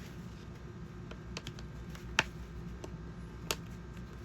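Hard plastic parts of a Masters of the Universe 200x Bashing Beetle toy clicking and knocking together as a piece is tried in place: a few light clicks, then a sharp click about two seconds in and another about a second later. A steady low hum runs underneath.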